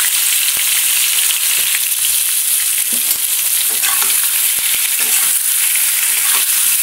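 Cubed potato, brinjal and pumpkin sizzling in hot mustard oil in a kadai. A spatula stirs them and scrapes and taps the pan now and then, giving short clicks over the steady frying hiss.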